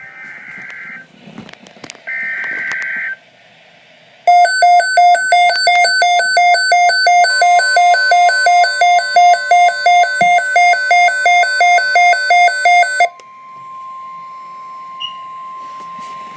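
Emergency alert broadcast tones: two short bursts of warbling SAME data tones, then a loud electronic alert beeping about twice a second for about nine seconds. A steady single NOAA Weather Radio warning tone near 1 kHz comes in partway through the beeping and carries on alone after it stops.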